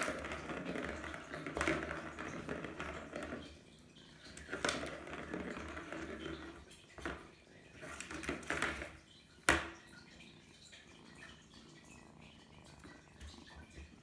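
Rustling and light plastic knocks as kittens play at a plastic ball-track cat toy with a cardboard scratch pad, with one sharp click about nine and a half seconds in; quieter after that.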